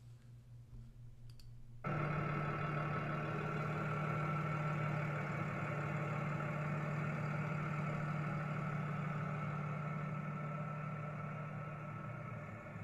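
Box truck engine idling steadily with the hood open, coming in abruptly about two seconds in.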